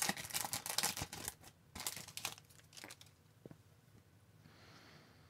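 Foil trading-card pack wrapper crinkling and tearing as it is opened: a quick flurry of rustles in the first second and a half, a few scattered crinkles after, then it dies away.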